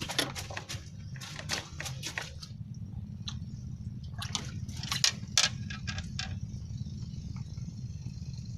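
Water splashing and dripping in quick runs of short splashes, in two spells: one at the start and another from about four to six seconds in, over a steady low hum.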